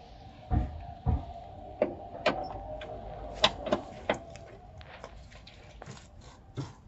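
Tools and metal parts handled during car suspension work: two dull knocks about half a second and a second in, then a run of sharp metallic clicks and taps, over a faint steady hum.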